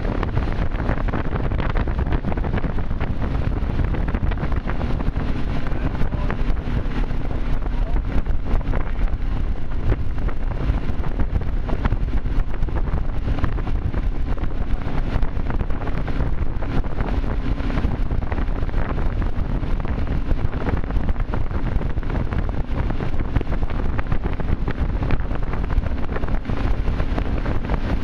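Wind buffeting the microphone on a motorboat running at towing speed, over the boat's steady engine drone and the rush of its wake.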